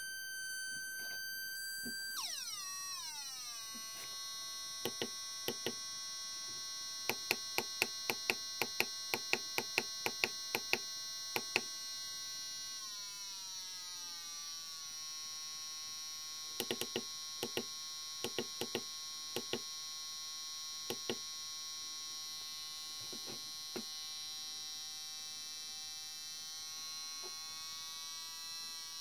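Small speaker driven by a breadboard oscillator circuit giving a steady, buzzy electronic tone, its pitch set by a potentiometer: it glides down about two seconds in, shifts again around the middle and starts rising near the end. Two runs of sharp clicks sound over the tone.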